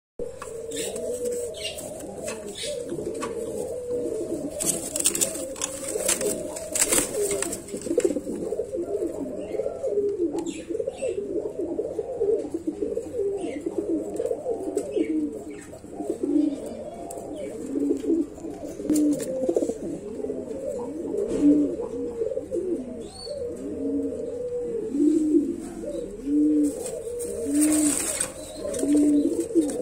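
Domestic pigeons cooing: a steady run of low, overlapping coos, with a few brief rustles near the start and again near the end.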